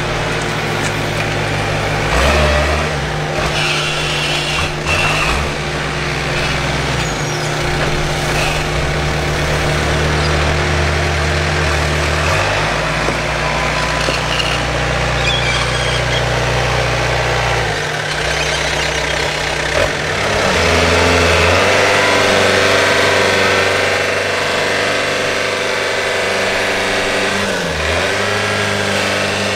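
Tractor engines running and being revved, with the engine note changing abruptly several times and rising and falling in pitch near the end.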